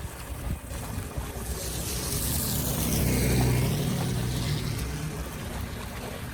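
A motor vehicle passes by, its engine hum and tyre hiss swelling to a peak about halfway through and then fading, over a steady rush of water.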